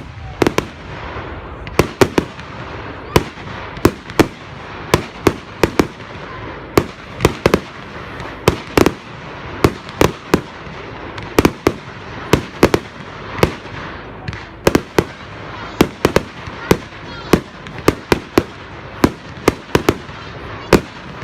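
Fireworks going off: a rapid, irregular series of sharp bangs, often two or three close together, over continuous background noise.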